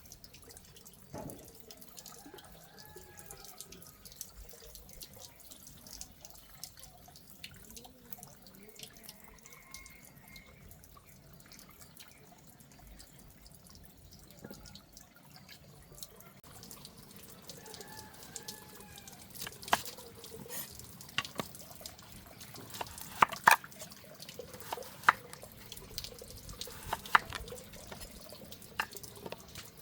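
Water running and dripping, with sharp splashes and clinks that get louder and more frequent in the second half.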